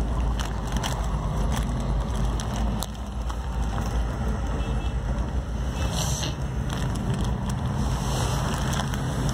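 Engine and road noise heard inside a moving road vehicle: a steady low rumble with many small rattles and clicks.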